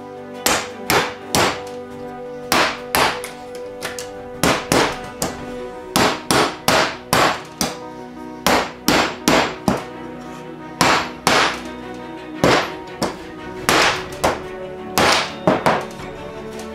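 Mallet tapping laser-cut plywood parts together, driving the tabs home into their slots: dozens of sharp knocks, mostly in quick runs of two or three. Background music with held notes plays underneath.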